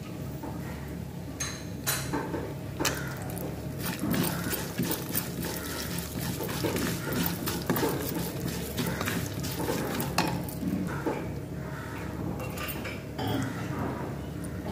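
Plastic spatula stirring cashews, poppy seeds and fennel seeds frying in oil in a nonstick kadai: repeated scraping and clicking against the pan over a sizzle.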